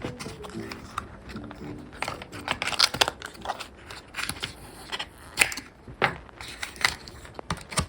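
Hands handling the Apple Watch's paper and cardboard packaging during unboxing: irregular rustling, with short clicks and taps, and faint music in the first couple of seconds.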